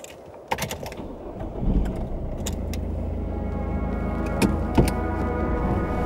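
Inside a car: a few sharp clicks and knocks, then a steady low engine rumble comes in about two seconds in. Sustained droning music tones build up under it from about halfway.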